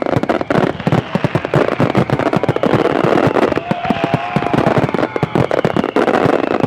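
Aerial firework shells bursting in a dense barrage, with bangs following each other several times a second without a break.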